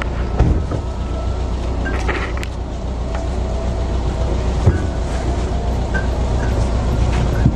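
A van's engine idling steadily, with a couple of short knocks, one about half a second in and one near five seconds in.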